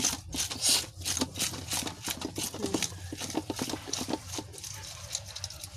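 Knife scraping the scales off a mudfish in a stainless steel basin: quick, uneven scraping strokes, several a second, thinning out near the end. The scales are hard and come off with effort.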